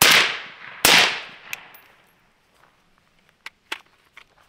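Two suppressed shots from a Zastava ZPAP85 5.56 AK-pattern rifle with a KNS adjustable gas piston, less than a second apart, each with a short ringing tail, followed by a few faint clicks. The rifle is running into cycling issues at this gas setting and needs more gas.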